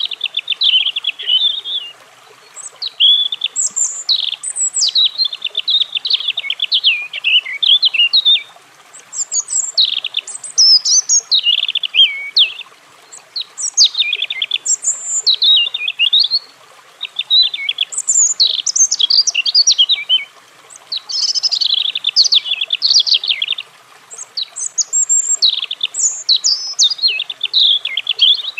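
European robin singing: repeated phrases of rapid, high, varied notes, each phrase a few seconds long, with pauses of about a second between them.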